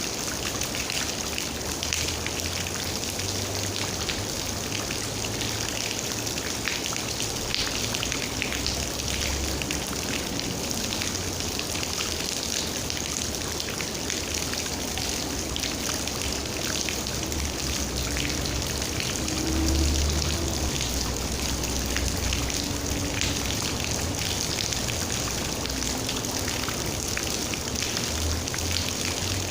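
Steady rain with a dense patter of raindrops, over a low rumble that swells briefly about two-thirds of the way through.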